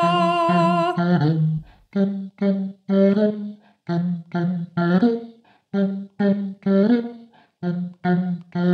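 A woman's layered a cappella voices: a higher sung part holds a long note over a hummed bass line, then stops about a second in. The bass line carries on alone in short, rhythmic hummed notes.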